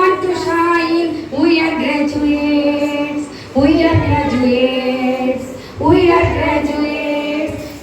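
Children's voices, with a woman's voice among them, singing a graduation song in long held notes, in about four drawn-out phrases.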